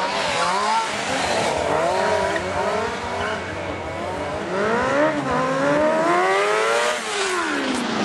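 Sportbike engine revving up and down repeatedly as a stunt rider holds a wheelie, with a long climb in revs from about four seconds in that peaks near seven seconds and then drops away.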